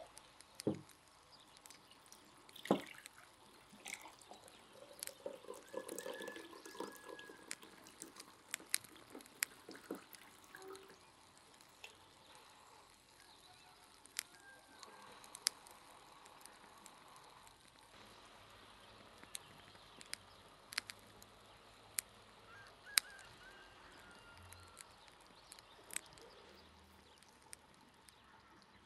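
Quiet outdoor background: scattered sharp ticks and clicks, spaced irregularly, over a faint hiss, with a few faint bird chirps now and then.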